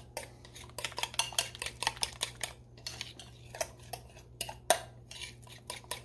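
Metal fork clinking and scraping against a glass mixing bowl while stirring a thick egg and cornmeal batter, in quick, uneven taps, one sharper clink late on.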